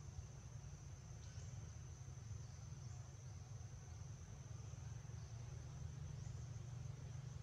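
Steady, high-pitched buzzing of an insect chorus, with a low rumble underneath.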